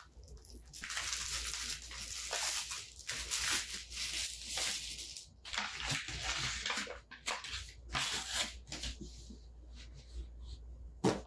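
Plastic wrapping on a roll of diaper liners crinkling and tearing as it is opened by hand, in irregular rustling bursts that fade out after about nine seconds, with one sharp tap just before the end.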